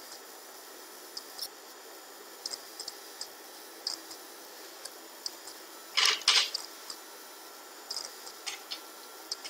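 Scattered soft clicks of a computer mouse over a steady hiss, with one louder burst of noise lasting about half a second around six seconds in.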